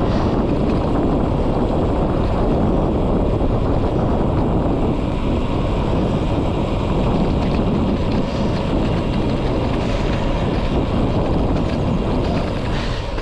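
Wind buffeting a GoPro's microphone on a moving road bike, a steady low rumbling rush mixed with road noise; it eases a little near the end.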